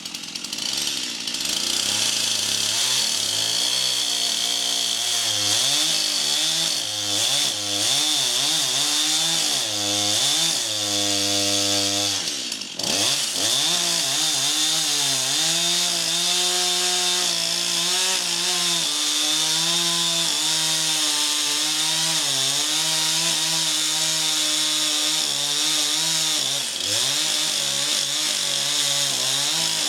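Stihl two-stroke chainsaw running and cutting wood. For the first dozen seconds its engine pitch swings up and down as it revs. It drops sharply for a moment about twelve seconds in, then holds a steadier pitch with small dips.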